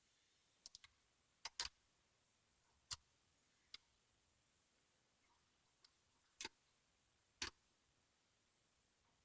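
Lock picking on a Locksmiths Own lock with spool pins: a pick and tension wrench making sparse, irregular small metallic clicks against the pins and core, about ten clicks with stillness between them.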